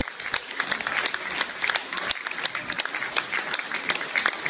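Audience applauding: many hands clapping at once in an irregular dense stream.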